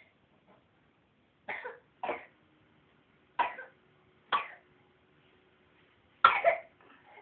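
Baby girl coughing and sneezing with a runny nose: five short, sudden bursts with pauses between, the loudest about six seconds in.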